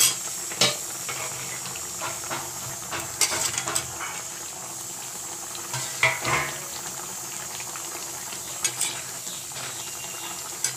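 Metal spatula scraping and knocking against a metal kadai as fried fish pieces are stirred into a simmering curry, over a steady bubbling hiss from the pot. The clatter comes in short bunches, loudest right at the start, around three to four seconds in and again about six seconds in.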